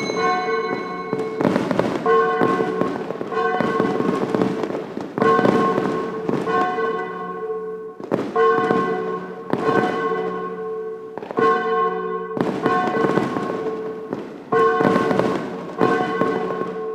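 Fireworks sound effect marking the end of a countdown timer: bursts about once a second, over a ringing alert tone that keeps repeating.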